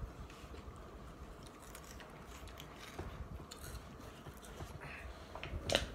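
Two people chewing and crunching spicy corn chips, faint, with scattered small crunches and a sharper, louder crunch near the end.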